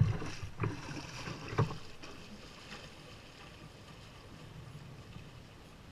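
A person wading through shallow river water, with splashing and a few dull knocks in the first two seconds; the splashing grows fainter as he moves away.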